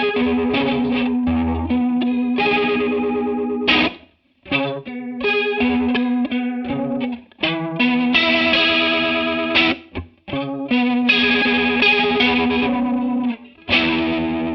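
Electric guitar played through a TC Electronic Corona Mini chorus pedal: chords are played and left to ring with a wavering chorus shimmer, broken by brief stops every three seconds or so.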